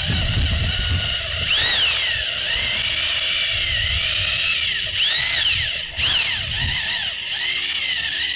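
Drill turning a Lug Ripper milling bit to cut out the center of a lug nut that spins on its stud. It makes a steady whine whose pitch rises and falls repeatedly as the cut loads the drill.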